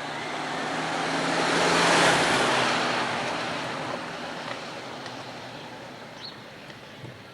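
A road vehicle driving past: its tyre and engine noise swells to a peak about two seconds in, then fades away slowly.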